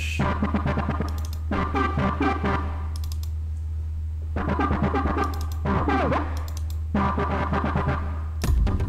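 Nexus software synthesizer auditioning one sequence preset after another: a string of short electronic synth patterns, each about a second and a half long and each different, over a steady held bass note. The presets are being tried in search of the right one. Near the end the full electronic dance track comes back in.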